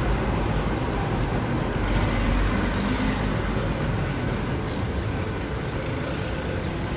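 Steady street traffic noise from cars on the road, with a deep low rumble.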